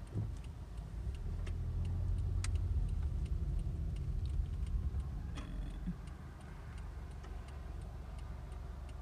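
Gusty wind buffeting the microphone as a low rumble; a strong gust builds about a second in and eases after about six seconds. Under it runs a faint, even ticking a little over twice a second, with a few sharp clicks or rattles.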